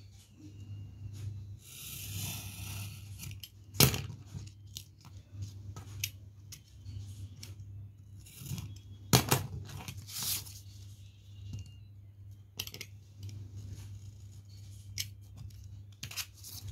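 Snap-off craft knife cutting thin card along a steel ruler on an acrylic cutting board: short rasping strokes of the blade through the card, broken by a few sharp clicks, the loudest about 4 and 9 seconds in. A steady low hum runs underneath.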